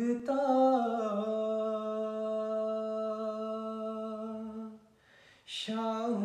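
Unaccompanied male voice singing a devotional Urdu naat, drawing out one long held note that steps down in pitch about a second in. Near the end it breaks off briefly for a quick breath, and the next word of the line begins.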